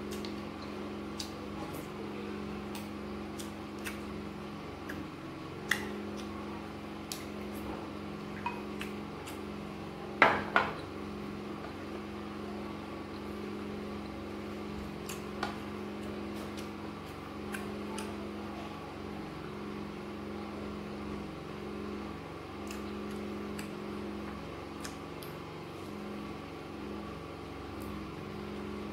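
Scattered light clinks and clicks of a spoon against a glass bowl and of food being handled while eating, the loudest a sharp double clink about ten seconds in. Under them runs a steady machine hum.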